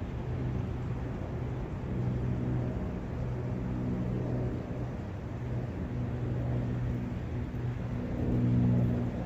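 Forest ambience of wind and a running brook, a steady rushing noise, with a low hum that fades in and out and swells near the end.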